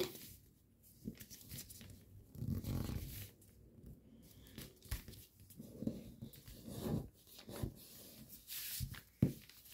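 Faint, intermittent rustling and crinkling of a sheet of origami paper as fingers fold it and press along the creases.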